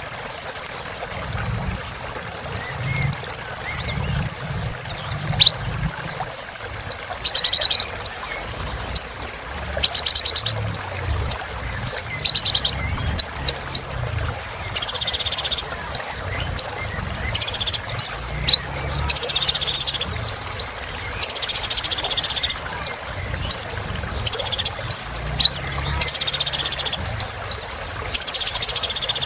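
Kolibri ninja sunbird singing without a break: quick series of high, thin chirps and short sweeping notes, broken by buzzy rattling trills every few seconds.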